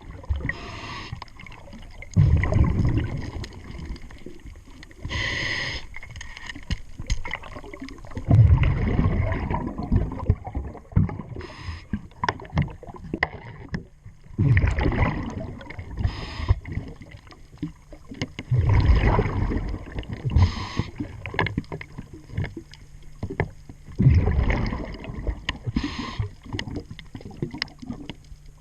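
A diver breathing underwater through a scuba regulator: a short hiss on each inhale, then a bubbling rumble of exhaled air about every five seconds, with scattered small clicks and knocks from work on the bow thruster.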